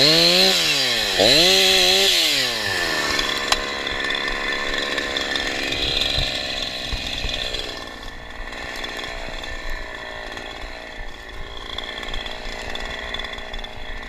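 Husqvarna 346XP two-stroke chainsaw revved up twice, its pitch rising and falling, then dropping back to a steady idle about three seconds in.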